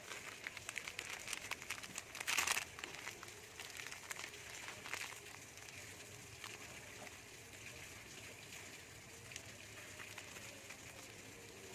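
Crinkling and crackling of foil-lined plastic cookie wrappers as they are handled and one is torn open, with a louder crackle about two seconds in and quieter rustling after.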